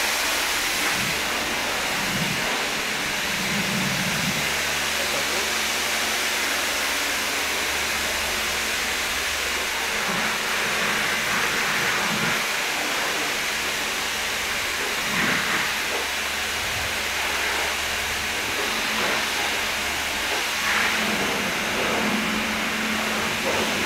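High-pressure car-wash lance spraying water onto a car's body: a steady hiss, with a low hum underneath.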